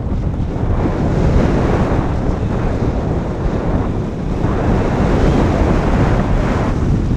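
Wind rushing over the onboard camera's microphone on a Sky Eye FPV RC plane in flight: a loud, deep buffeting rumble that swells and eases as the plane banks and dives. No clear motor whine stands out above it.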